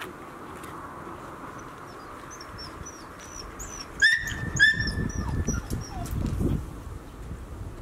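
Shiba Inu puppy giving two sharp yelps about half a second apart, about four seconds in, followed by a low rumble.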